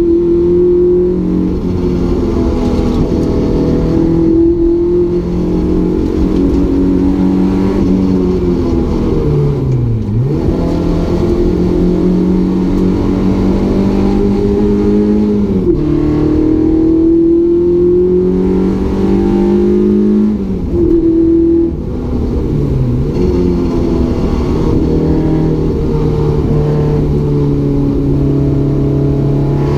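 Renault Clio 172 race car's 2.0-litre four-cylinder engine under hard driving, heard from inside the cabin. The newly fitted engine is held to 6000 rpm. The pitch climbs steadily through each gear and drops at the changes, with one deep fall and recovery about ten seconds in.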